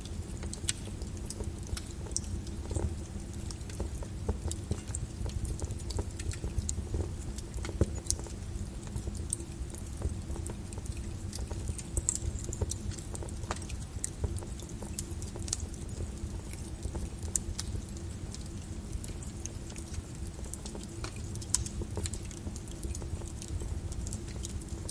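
Wood fire crackling, with irregular sharp pops and snaps, over a steady bed of rain.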